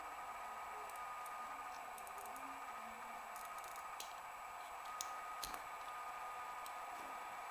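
Sparse light metallic clicks of a homemade lever pick and small screwdriver tensioner working inside a two-lever padlock, a few sharper ones about halfway through, over a steady hiss.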